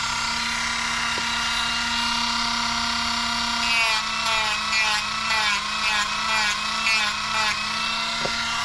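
Dremel rotary tool with a sanding drum running as a steady high whine while it sands and deburs a spot on a plastic RC buggy rear suspension arm; the pitch dips briefly again and again as the drum is pressed into the plastic.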